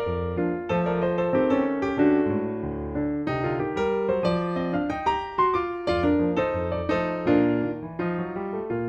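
Background music: a piano or keyboard playing a steady run of notes.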